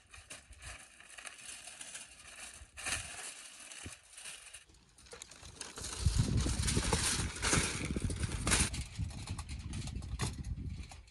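Aluminium foil and baking paper crinkling and rustling as they are spread out and handled, louder for a few seconds past the middle, with a couple of sharp clicks near the end.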